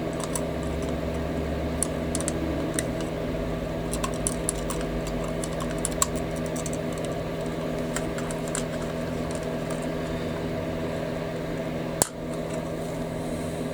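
Scattered small clicks and taps of tiny scale-model kit parts and tools being handled, with one sharper click about twelve seconds in, over a steady electrical hum.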